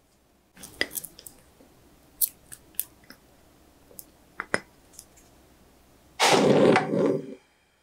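Light clicks and taps of a glass bowl and silicone spatula as honey is poured and scraped into a nonstick frying pan. About six seconds in, a much louder rushing noise lasts a little over a second.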